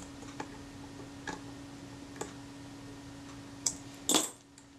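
Small metal camera parts being handled on a workbench: a few faint, scattered clicks, then a louder click and a short clatter about four seconds in. A steady low hum runs underneath.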